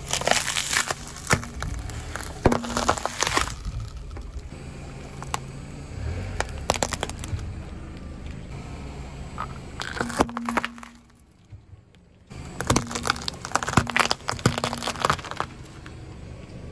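A car tyre rolling slowly over small objects and crushing them, with sharp cracks and crunches in several separate runs. The first run is hard-candy lollipops and their styrofoam block breaking. There is a low steady rumble underneath and a short near-silent gap about two-thirds of the way through.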